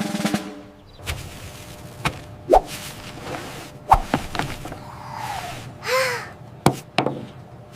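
Cartoon sound effects: a string of sharp knocks and whacks, with swishes and a couple of short pitched squeaks, one of them rising and falling.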